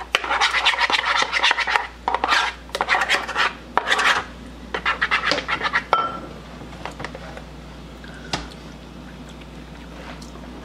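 A utensil stirring and scraping rapidly around a plastic bowl, whisking a thick mayonnaise dressing, several strokes a second. The stirring stops about six seconds in, leaving only a few light taps.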